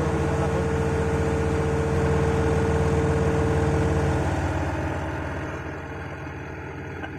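Steady hum of running ship's engine-room machinery, a low drone with a steady whine over it; the whine cuts off about four seconds in and the hum becomes quieter.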